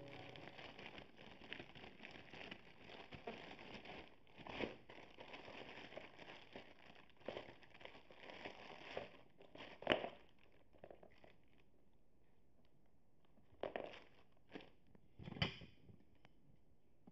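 Clear plastic bags crinkling and rustling as bagged shoes are handled, in scattered short crackles, the loudest about two thirds of the way through.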